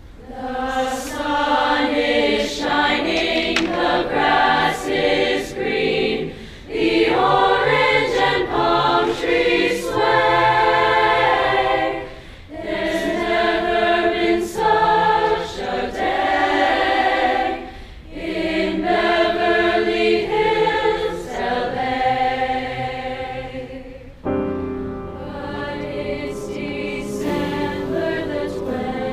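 A large school choir singing together in phrases with short breaks between them, turning softer over the last few seconds.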